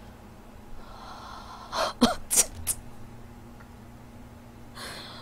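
A woman's short, sharp gasping breaths, three in quick succession about two seconds in, the first with a brief falling voiced catch.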